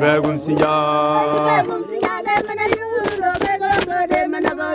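Group of Chewa singers chanting a repeated call of "Msinja". A long held sung note comes first, then shorter sung phrases over steady rhythmic hand clapping, about four claps a second.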